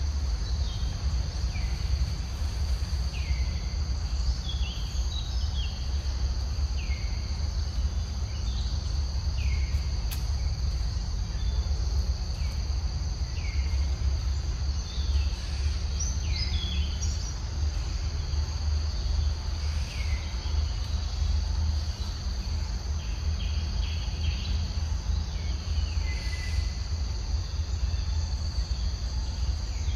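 Forest ambience: insects drone steadily at two high pitches, with short falling bird chirps every second or two, over a constant low rumble.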